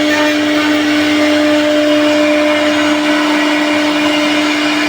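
A CNC machine's motor running at a steady speed, giving a constant, unchanging whine over a rushing noise.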